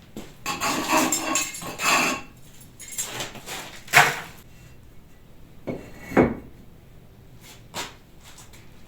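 A brick being handled against masonry: a couple of seconds of scraping and clattering, then a few separate hard knocks, the loudest about four seconds in.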